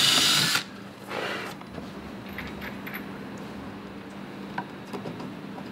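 Cordless drill running against a timber block in two short bursts: the first cuts off about half a second in, the second comes about a second in. After that there are only faint scattered ticks.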